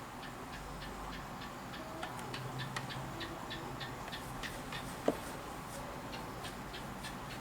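Light rapid ticking, about three to four ticks a second, with one sharper click about five seconds in.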